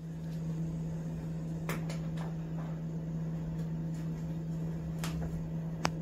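A steady low hum from a household appliance, with a few light clicks and taps as a kitten bats a small plastic clip toy about on a tile floor.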